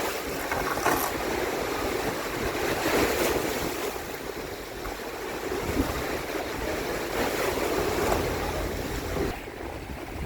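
Storm-driven waves surging and splashing in a harbour, with gusty wind rushing over the phone's microphone.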